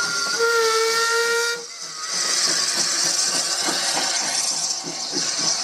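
Andrew Barclay 0-4-0 saddle tank steam locomotive sounding its steam whistle once, for just over a second about half a second in, then chuffing with regular exhaust beats as it pulls its carriage away, over a steady hiss of steam.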